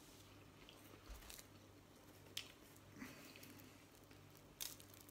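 Faint chewing of a flaky puff-pastry sausage roll: a handful of short, soft crunches and mouth smacks spread through, over a low steady hum.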